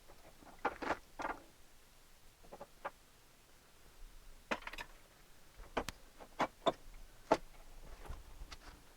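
Scattered clicks and snaps of a plastic panel tool prying a part free around a car's door handle: a few knocks about a second in, then a run of sharp clicks in the second half.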